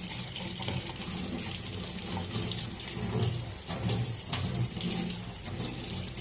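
Kitchen tap running into a sink as fire-roasted ginger is rinsed under the stream to wash off its charred skin. The water splashes unevenly and keeps running throughout.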